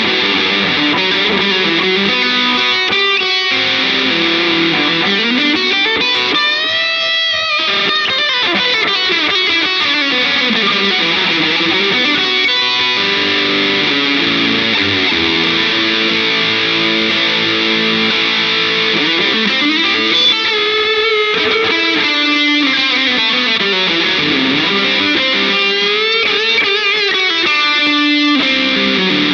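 Les Paul electric guitar played through an overdriven amp simulation with reverb, in sustained lines with notes that slide and bend up and down.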